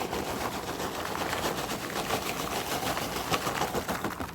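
Popped popcorn being poured from a bag into a mixing bowl: a dense, steady rattle of many small light hits that stops suddenly near the end.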